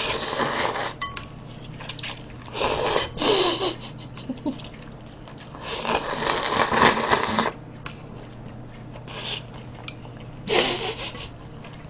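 A person slurping cold noodles out of a bowl of broth in several long, hissing slurps: one at the start, one around three seconds in, a longer one from about six to seven and a half seconds, and shorter ones near the end, with chewing between.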